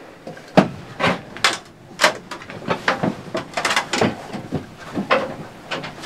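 Boots knocking on the rungs of a metal ladder and on wooden boards as someone climbs: a run of irregular clunks, about two a second.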